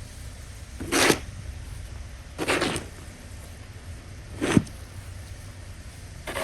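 Snow being shovelled: four short scrape-and-throw strokes, one about every one and a half to two seconds, over a steady low rumble.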